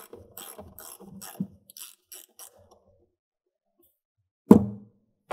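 Socket ratchet clicking in short strokes, about three or four a second, as it loosens the positive terminal clamp nut on a 12 V car battery. After a pause, two loud knocks come near the end.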